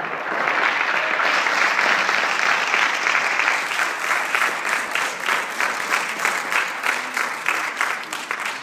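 Audience applauding: a dense round of clapping that thins toward the end into fewer, separate claps.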